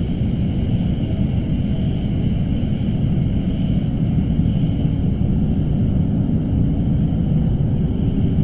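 Suspense ambience sound effect: a steady, dense low rumbling drone with faint high tones held above it, unchanging throughout.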